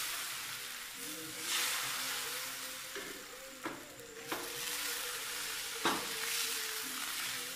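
Rice-and-coconut batter sizzling in a hot non-stick frying pan. The sizzle swells twice, and a few sharp clicks of the pan and cookware come in between.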